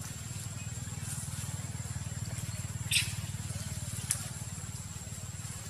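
A steady low motor hum with a fast even pulse, under a thin constant high whine. Two short, sharp high chirps come about three seconds and four seconds in.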